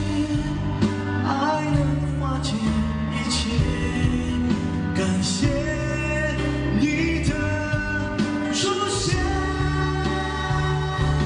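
A male singer sings a Mandarin pop song live into a handheld microphone over instrumental backing.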